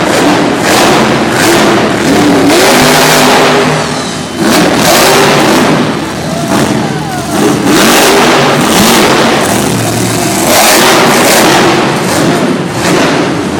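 Monster truck engines revving hard in loud surges, their pitch rising and falling as the trucks accelerate and jump.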